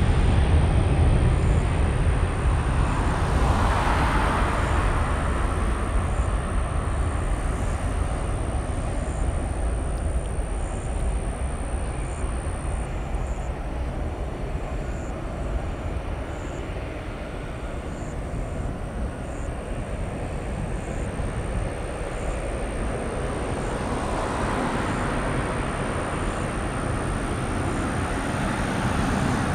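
Twin jet engines of a Southwest Boeing 737 at takeoff power: a deep, steady rumble, loudest as the takeoff roll begins. It fades slowly as the jet rolls away and climbs out, then swells a little again near the end.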